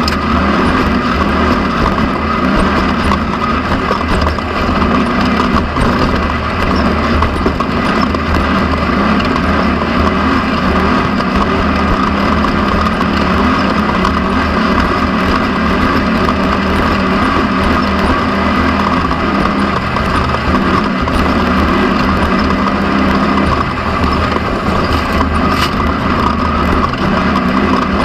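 Off-road race car's engine running hard at speed, heard from an onboard camera: a loud, steady engine note with small dips throughout.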